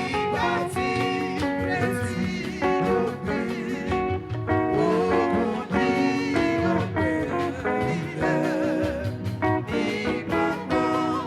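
Church music: singing over guitar accompaniment.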